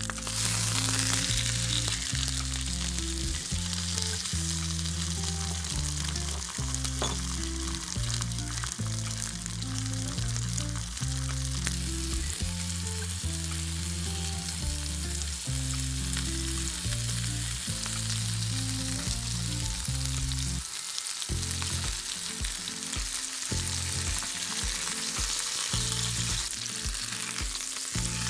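Ribeye steak and garlic sizzling steadily in a hot ridged grill pan, with butter melting and foaming around the meat in the second half. Background music with a steady bass line plays underneath.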